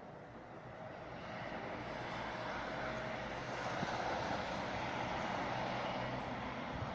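Steady engine noise that swells over the first few seconds, as of a motor vehicle approaching, then holds at that level.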